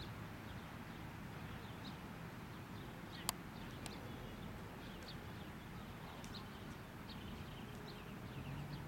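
Low outdoor background rumble with scattered faint bird chirps, and a single sharp crack about three seconds in, followed by a fainter click.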